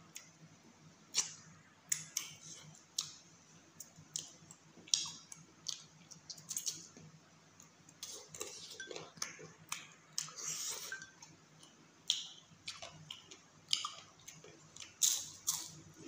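Mouth sounds of eating chicken curry and rice by hand: irregular wet smacks and clicks of chewing, lip smacking and finger licking. A faint steady low hum runs under them.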